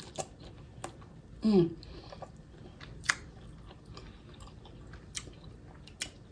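Close-miked chewing of sauce-dipped lobster tail meat: scattered wet mouth clicks and smacks, with a short vocal hum from the eater about a second and a half in.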